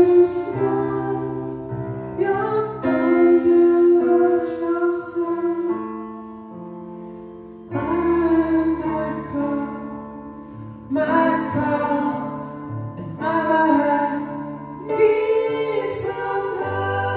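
Live band music: stage-keyboard piano chords under several voices singing a slow song in harmony, in phrases, with a softer passage near the middle.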